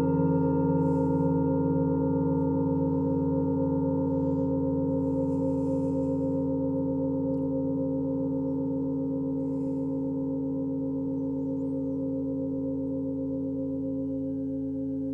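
A large struck metal sound-bath instrument ringing on after a single strike, several deep tones slowly dying away with a slow wavering pulse.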